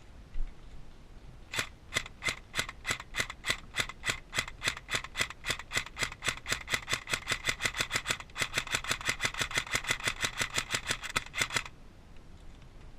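A long run of sharp, evenly spaced clicks, about four to five a second, starting about a second and a half in and stopping suddenly near the end.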